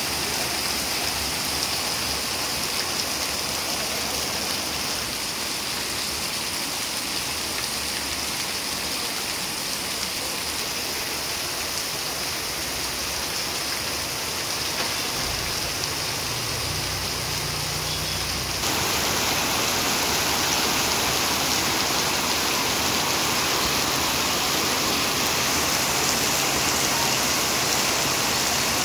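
Heavy rain pouring down onto a road and rooftops, a steady hiss that steps up louder about two-thirds of the way through.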